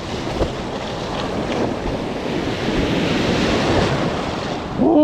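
Ocean surf breaking, a rushing wash that builds to a peak a few seconds in, with wind buffeting the microphone. A short pitched sliding sound cuts in right at the end.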